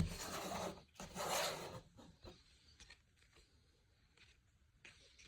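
Trading cards being handled: two rustling, rubbing swipes in the first two seconds as the stack is slid and squared, then a few faint taps and clicks.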